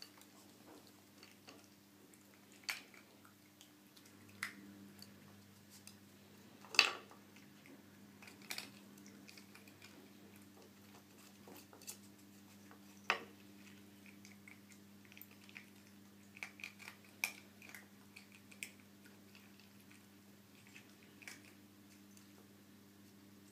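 Wooden pegs of a dog puzzle board clacking and knocking on the board as a puppy noses and pulls them out of their holes to get at hidden food, with occasional chewing. The knocks are scattered and irregular, the loudest about a third of the way in and a quick cluster a little past the middle, over a low steady hum.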